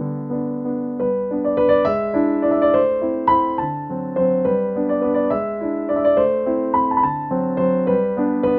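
Background piano music: a gentle electric-piano melody over sustained chords, new notes struck about every half second.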